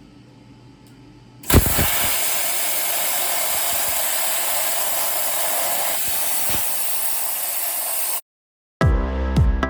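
Plasma cutter cutting steel tube: a loud, steady hiss that starts with a sudden pop about a second and a half in and cuts off abruptly near the end. Electronic music with a beat follows right after.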